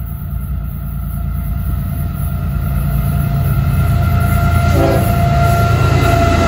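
FEC GE ES44C4 diesel locomotives approach and come alongside. Their low engine rumble grows steadily louder, and steady higher tones join in about two-thirds of the way through as the lead unit nears.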